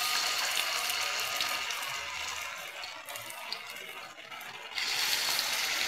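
Vegetable fritter batter sizzling as it deep-fries in hot oil in a wok. The sizzle eases off, then flares up again suddenly near the end as more batter goes into the oil.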